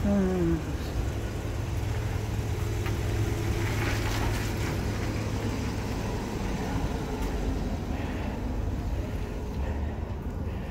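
Road traffic: motor vehicles running by with a steady low rumble, one passing with a falling pitch right at the start.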